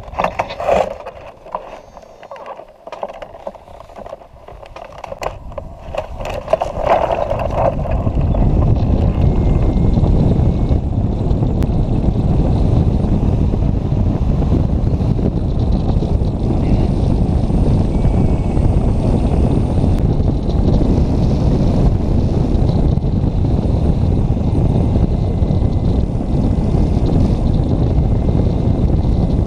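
Wind buffeting the microphone of a camera mounted on a hang glider in flight: a steady, loud, mostly low rush. It builds up over the first eight seconds as the glider launches and picks up speed, after a few scattered knocks.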